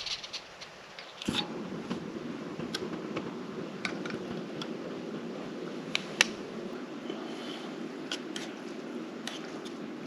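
Light clicks and scrapes of a utensil working camp food, with a sharp click about a second in. After that click a steady low rushing noise sets in and continues.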